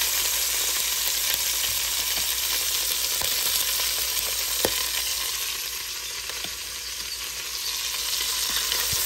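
Chicken legs and chopped bacon sizzling steadily as they brown in hot butter and olive oil, with a few sharp clicks and pops scattered through; the sizzle eases slightly about two-thirds of the way in.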